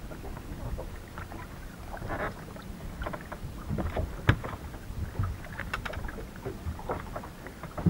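Water and wind noise around a small boat, a steady low rumble, with scattered knocks and clicks from fishing gear and footsteps on the boat's deck; one sharp click comes a bit over four seconds in.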